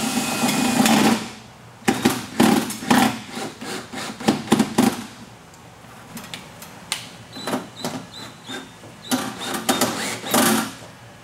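Cordless drill driving self-drilling screws into a rolling shutter's hood cover. The drill runs for about a second at the start, then come a string of sharp clicks and knocks, and the drill runs again briefly near the end as a second screw goes in underneath.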